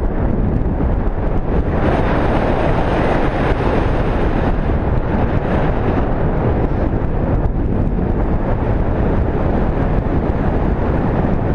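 Steady, loud rush of wind buffeting the microphone, the airflow of a paraglider in flight.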